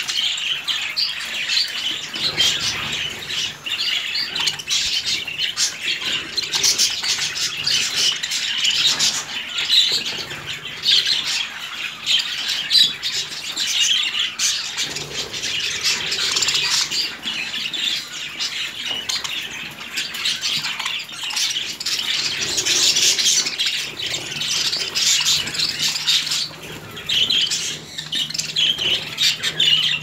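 A flock of budgerigars chattering, with many overlapping chirps and squawks running on without a break.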